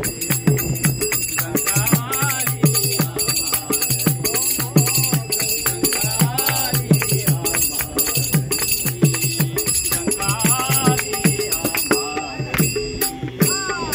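Devotional bhajan music: a pair of small hand drums beaten in a quick steady rhythm, with small brass hand cymbals (manjira) jingling and a man singing. The cymbals drop out briefly near the end.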